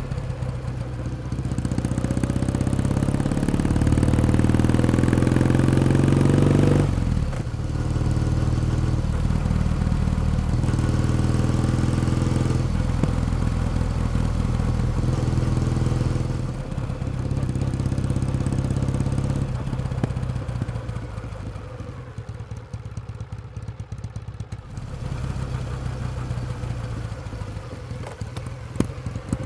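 Kawasaki W1 Special's vertical-twin engine and exhaust on the move. The revs climb through a gear for several seconds and drop sharply about seven seconds in, then the engine pulls steadily. It eases off and runs quieter a little past the twenty-second mark, then picks up again near the end.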